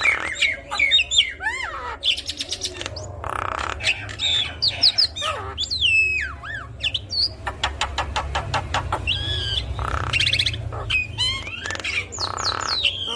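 Javan myna (jalak kebo) singing a busy, varied song: whistled notes that glide up and down, harsh squawks and several fast rattling trills. A low steady hum runs beneath.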